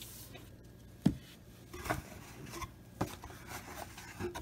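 Trading cards being handled on a table: a handful of soft, spaced taps and rustles of thin cardboard cards being sorted and stacked.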